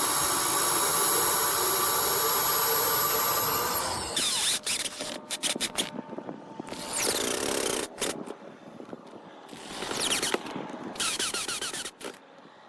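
Power drill running steadily for about four seconds and then stopping, boring the marked mounting holes for the doorbell. After that come scattered clicks, scrapes and rustling.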